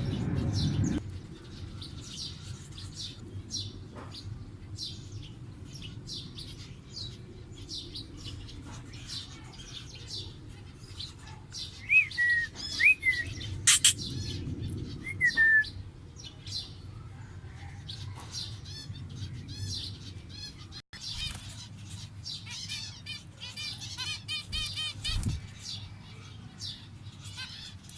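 A colony of zebra finches calling: a steady stream of short, high chirps, with a few louder whistled notes near the middle and a denser stretch of song about three-quarters of the way through. A low, steady hum runs underneath.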